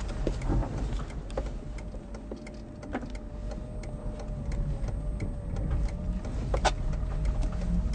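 Cabin sound of a Citroën Berlingo électrique creeping at low speed: a low rumble under a steady, slightly wavering electric whine from the drive, with scattered light clicks and a sharper click near the end. The van is jerking as its faulty regenerative-braking chopper switches too harshly.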